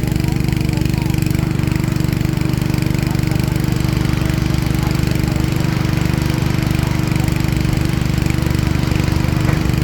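Heavy diesel construction-machine engine running steadily at constant speed, a deep even drone with no change in pitch.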